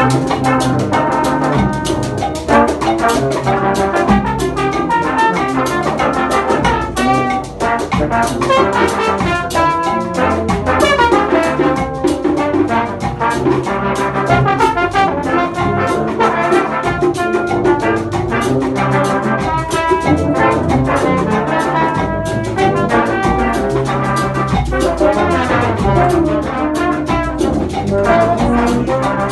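Brass band playing a groove: trumpets and trombone over drums.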